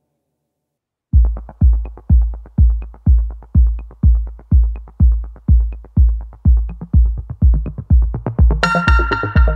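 Electronic background music: after about a second of silence, a drum-machine kick starts at about two beats a second with a light tick on every other beat, and synthesizer chords come in near the end.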